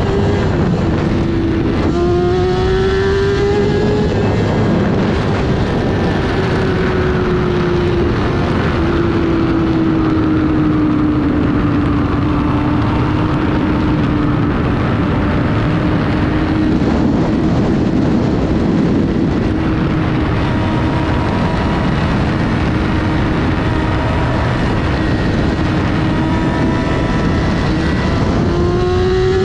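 2004 Kawasaki ZX-6R 636's inline-four engine running at high revs at speed, its pitch climbing about two seconds in, easing down, holding steady, then climbing again near the end, over steady wind and road noise.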